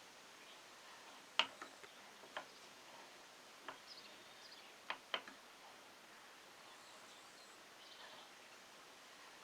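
Faint steady hiss with several sharp clicks or taps, two of them close together about five seconds in; no motor is heard running.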